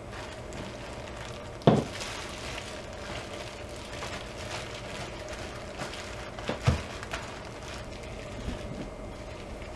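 A metal scoop digging soft shea butter out of a plastic bag, the bag crinkling, with dull knocks as the butter is handled and dropped into a plastic container, the loudest about two seconds in and a cluster more around seven seconds.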